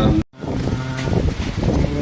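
Storm wind buffeting the microphone in low rumbling gusts, over faint voices. The sound cuts out completely for an instant about a quarter second in.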